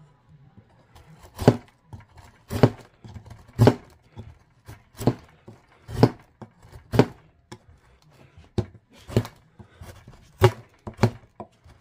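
Small full-tang fixed-blade knife shaving curls off a hard block of wood: a series of short, sharp strokes of the blade, roughly one a second.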